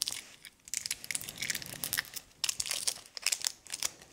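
A small chewing-gum packet being picked open by hand: irregular crinkling and crackling of the wrapper.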